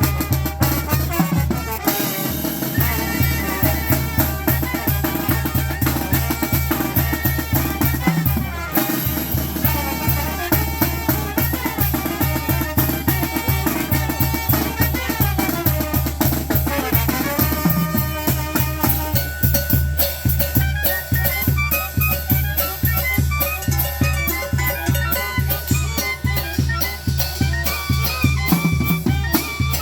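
Zacatecan-style tamborazo band playing: brass melody over a steady beat of bass drum (tambora) and cymbal.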